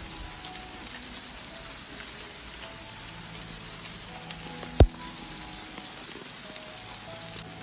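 Rain and small hail falling on a composite deck, a steady even hiss. About five seconds in there is a single sharp thump, the loudest sound.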